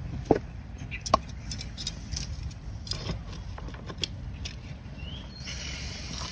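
Metal tongs clicking and knocking against a wire grill rack as crabs are turned on it, a string of short sharp clicks over a steady low rumble. A hiss comes up about five seconds in.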